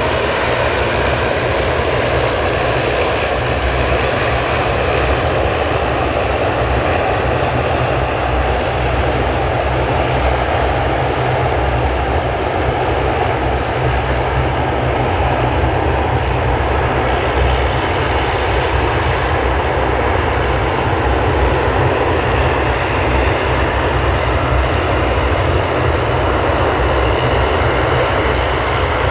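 A Boeing 767-300 airliner's jet engines running steadily as it taxis along the runway. The noise is loud and even, with a low rumble under it.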